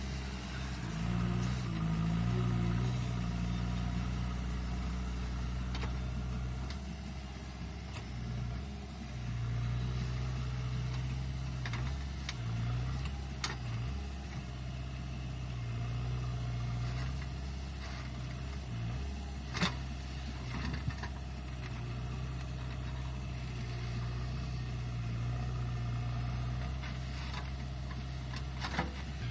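JCB 3DX backhoe loader's diesel engine running under changing load, its pitch rising and falling as it works. A few sharp knocks cut through it, the loudest about twenty seconds in.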